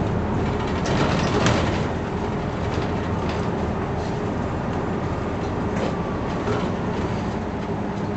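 Cabin noise inside a 2003 Mitsubishi Fuso Aerostar city bus on the move: a steady engine hum and road rumble with rattles from the body, a clatter about one and a half seconds in, and a faint high whine for a couple of seconds midway.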